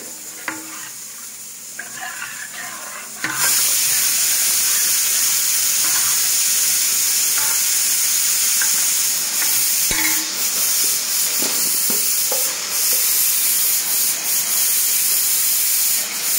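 Steel spoon stirring and clinking in a steel pot of kadhi batter (gram flour whisked into buttermilk). About three seconds in, a loud steady hiss starts abruptly and carries on under the stirring.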